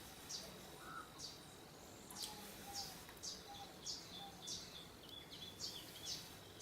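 A small bird chirping over and over, short high chirps about twice a second, with a faint steady high-pitched whine beneath.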